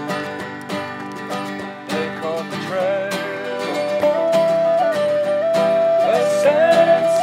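Banjo picking a steady run of plucked notes in an instrumental folk passage. About two and a half seconds in, a second part enters with a held melody line that slides between notes and grows louder toward the end.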